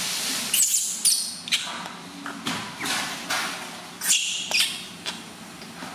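Newborn baby monkey crying in a series of short, high-pitched squeals, with rustling between them.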